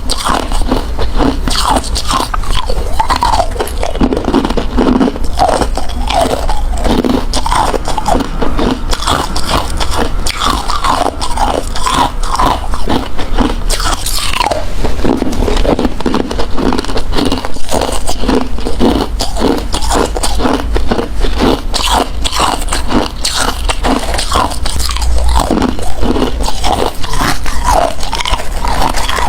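A person biting and chewing hard crushed ice close to the microphone: a continuous run of loud, crackling crunches.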